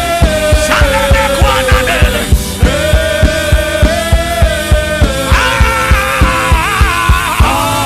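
Worship music: a steady, quick drum beat under long held keyboard chords, with a lead melody line that bends in pitch twice.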